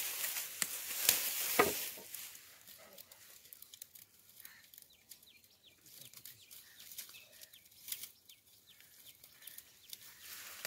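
Dry sorghum fodder stalks rustling and crackling as a metal rod is worked through the pile, loudest in the first two seconds with a sharp crack about a second and a half in. After that the rustling is quieter, with birds chirping repeatedly.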